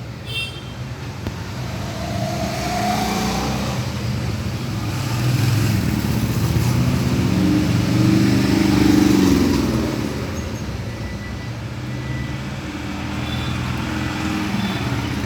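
Motor vehicle engine running close by, growing louder to a peak about two-thirds of the way through and then easing off, as if passing.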